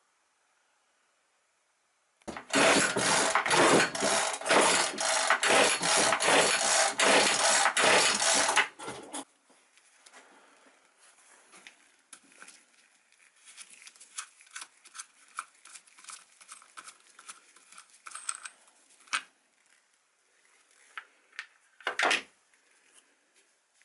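Loud mechanical clattering with rapid repeated strokes for about seven seconds, then stopping; light clicks and knocks of handling follow.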